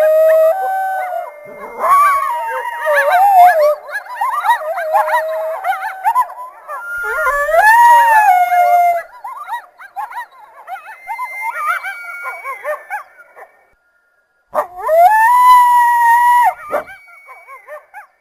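A group of coyotes howling and yipping together, many high, wavering calls overlapping. After a short break near the end, a single long howl rises and then holds steady before it stops.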